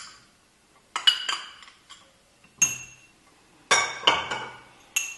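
A metal teaspoon clinking against a small glass jar while scraping out the last of the honey: a few sharp clinks with a short glassy ring, in groups about a second apart.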